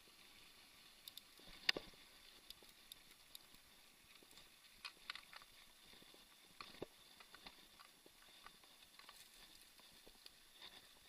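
Faint sound of a mountain bike rolling over a gravel and dirt path: scattered sharp clicks and knocks from the bike over bumps, the loudest about two seconds in, over a low steady hiss.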